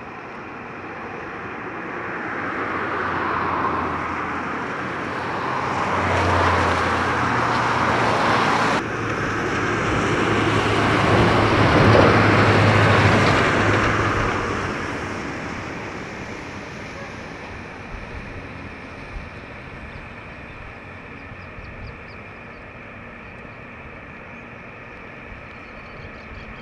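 Airliner jet engines running at high power as the aircraft passes. The noise builds over several seconds to a peak, breaks off abruptly for a moment about nine seconds in, then fades to a quieter steady noise.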